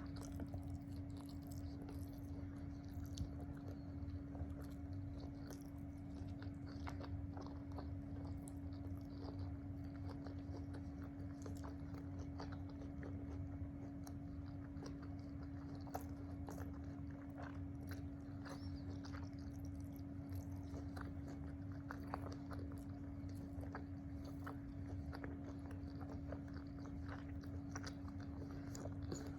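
A person chewing and biting food close to the microphone: wet chewing with many small clicks and smacks. A steady hum runs underneath.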